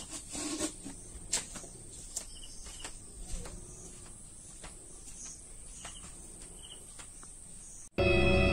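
Outdoor ambience of a steady high insect drone, with scattered faint clicks and small chirps. Near the end, loud music cuts in abruptly.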